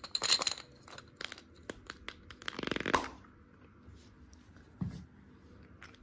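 Candy packaging being handled: crinkling and tearing of a wrapper in two rustling bursts, the longer one about halfway through, amid light clicks of plastic, then a soft thump near the end.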